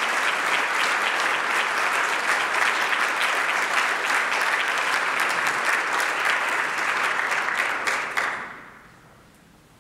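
Audience applauding: dense clapping from a large seated crowd that fades away about eight seconds in.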